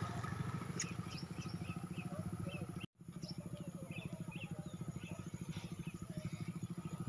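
Motor scooter engine idling with a steady fast pulse, while small birds chirp repeatedly over it. The sound cuts out for a split second about three seconds in.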